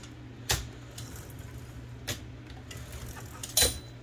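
Metal parts of an Olivetti Linea 98 typewriter carriage clicking as they are handled and fitted: three separate clicks, the last the loudest with a short metallic ring, over a low steady hum.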